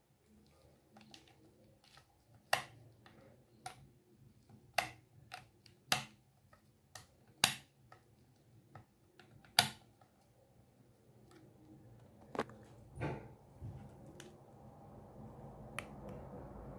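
Rotary range-selector switch of a capacitance meter clicking from one detent to the next, single sharp clicks spaced irregularly about a second apart, around a dozen in all. Later come a couple of softer knocks and a low handling rustle.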